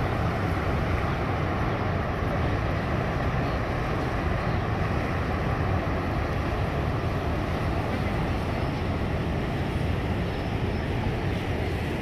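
Steady rush of the Rhine Falls waterfall and the fast white-water rapids below it, an even, unbroken noise of moving water.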